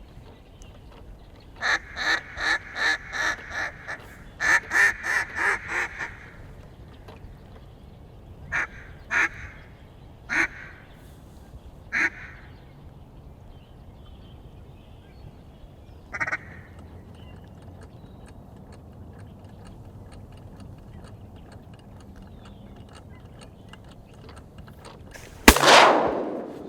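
Mallard-style quacking: two quick runs of loud, evenly spaced quacks, then a few single quacks spaced well apart. Near the end comes one loud shotgun shot.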